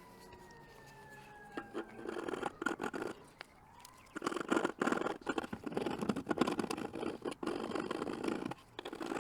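Rapid scraping, clicking and crackling of hard plastic as the bulb hole in a reverse-light housing is worked and the bulb forced in. It starts about two seconds in and grows denser from about four seconds in.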